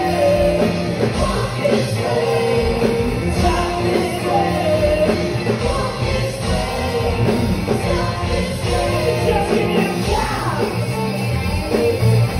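Live rock band playing a song with electric guitars and bass under a lead singer's vocals, a full loud mix heard through the theatre's sound system.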